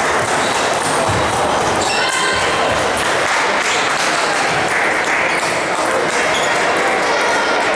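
Table tennis balls clicking off tables and paddles from many matches around a sports hall, with a steady chatter of voices.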